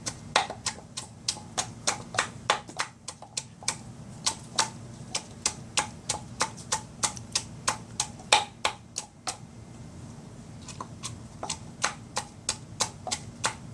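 Rapid, uneven series of sharp clicks or taps, about four a second, pausing briefly about two-thirds in and then resuming more faintly, over a low steady hum.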